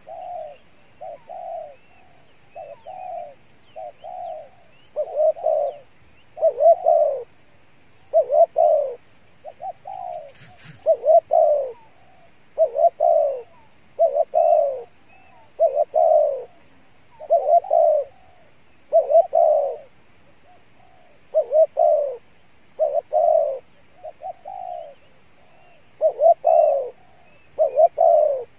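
Spotted dove cooing: a long run of low coos, about one a second, some in close pairs with short pauses between groups. A faint steady high tone runs behind it, and there is a single sharp click about ten seconds in.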